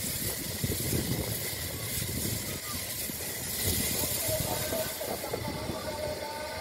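Steam locomotive working along the track, with a steady hiss of steam from its open cylinder drain cocks over the low rumble of the engine.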